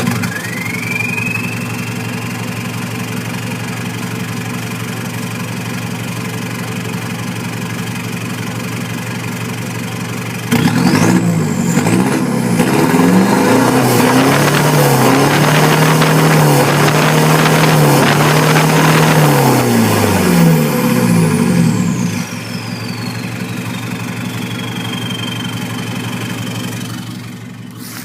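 2007 Chevrolet Colorado's 4JK1 2.5-litre common-rail turbodiesel with an aftermarket performance exhaust, idling just after starting, with a high turbo whistle that rises and settles. About ten seconds in it is revved up and down repeatedly for around ten seconds, louder, with a rising turbo whine. It then drops back to idle as the whine slowly falls away.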